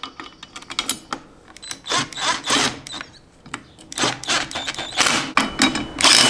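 Ratcheting wrench clicking in short irregular runs as nuts are tightened onto bolts, with metal clinks of tools and hardware.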